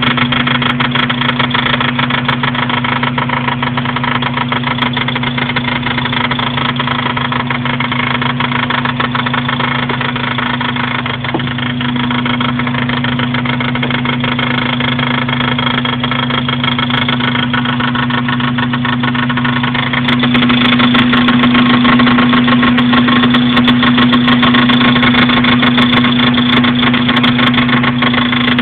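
Honda RSX Type-S four-cylinder engine running steadily, with a rapid knocking from behind the transmission mount. The owner says it is not the engine or the transmission and does not know what it is.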